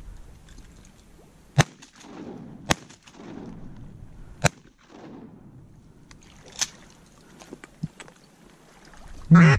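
Three shotgun shots spaced a second or two apart, each trailed by a short echo, then a fainter, sharper report a couple of seconds later.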